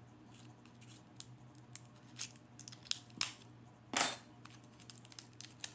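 Small plastic packets and the parts of a diamond painting kit being handled, with scattered light clicks and crinkly rustles, the loudest rustle about four seconds in.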